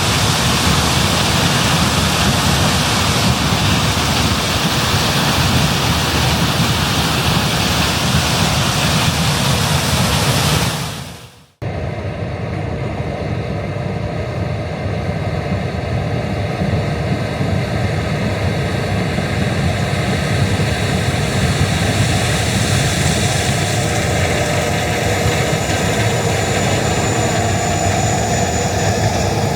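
Heavy farm machinery running in the corn harvest: a steady, dense mechanical rush, then after a sudden break about 11 seconds in, engine running with steady drone tones over the noise.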